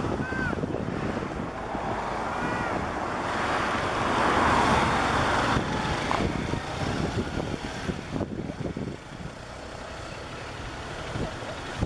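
Gulfstream IV business jet's twin Rolls-Royce Tay turbofans heard as a departing jet roar. The roar swells to its loudest about four to five seconds in, then drops off and fades as the aircraft climbs away. Wind buffets the microphone throughout.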